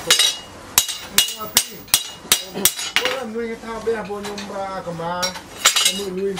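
Hand hammer striking a long steel knife blade, forged from an old chainsaw part, against a steel post used as an anvil. It gives sharp metallic clinks with a short ring, about three a second, with a pause of a second or so in the middle.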